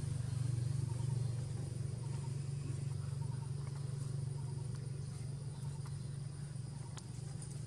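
A steady low hum, like a motor running somewhere near, with faint steady high-pitched tones above it and a few soft ticks.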